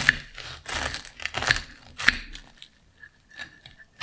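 Knife and fork cutting through crisp, flaky baked puff pastry on a ceramic plate: crunching and crackling of the pastry, with a few sharp clinks of the cutlery against the plate. It goes quieter for the last second or so.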